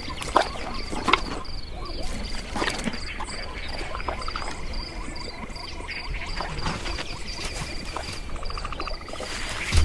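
Nature ambience of insects chirping in a steady rhythm, about three chirps a second, with frogs croaking and a short pulsing trill near the end.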